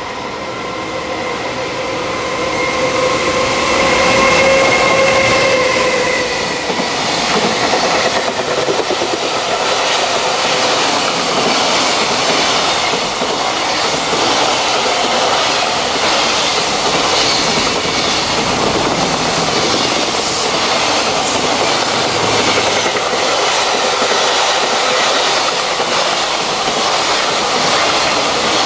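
A container freight train passing at speed behind an electric locomotive. A steady whine is heard as the locomotive comes through in the first six seconds or so. After that, the long run of container wagons goes by with a continuous rumble and clatter over the rail joints.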